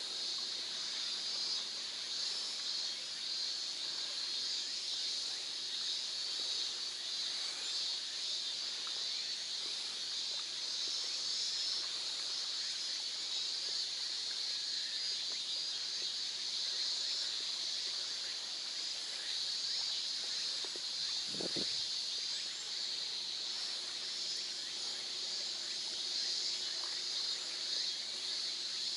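Steady high-pitched insect chorus over open water, with faint splashing from a paddle beside an inflatable packraft and one brief squeak about two-thirds of the way through.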